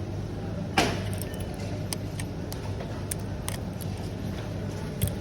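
Small metallic clicks and taps of watch-repair tools against a wristwatch case during a battery change, one sharper click about a second in and a few lighter ones after, over a steady background hum.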